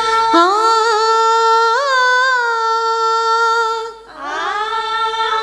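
Female vocal singing, a cappella: a long held note on an open vowel with small ornamental turns, a brief breath about four seconds in, then a second held note sliding up into place. This is the sustained, ornamented ending of a phrase of a Telugu devotional song being taught.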